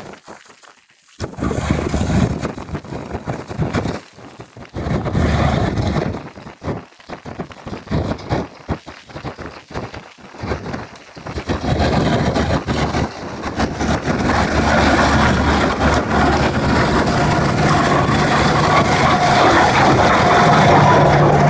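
Claas tractor running with a flail mulcher shredding dry maize stalks. The sound comes and goes in the first half, then turns steady and louder from about twelve seconds in, with a steady whine from the mulcher as it passes close.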